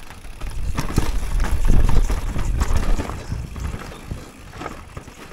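Mountain bike descending a rooty dirt trail, heard from a handlebar-mounted camera: the tyres rumble over dirt and roots while the bike rattles and knocks over the bumps. It is roughest and loudest for a couple of seconds starting about a second in.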